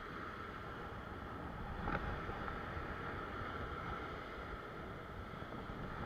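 Wind rumbling on the microphone over the steady wash of surf breaking on a rock ledge, with one short light knock about two seconds in.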